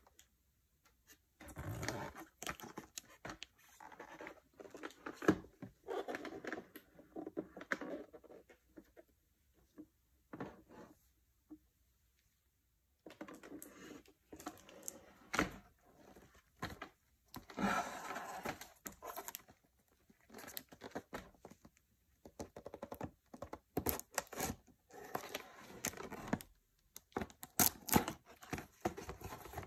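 Gloved hands handling and opening a cardboard product box: irregular rubbing, scraping and sharp taps of cardboard, with a pause of a couple of seconds near the middle.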